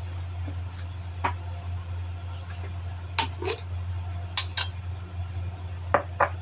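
Kitchenware clinking: about seven separate sharp clinks of utensils against dishes and pans, some in quick pairs, over a steady low hum.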